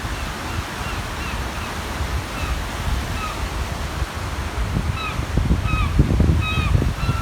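Small waves breaking on the reservoir shore with wind buffeting the microphone, and gulls calling: short yelping cries, a few at first, then several a second in the second half.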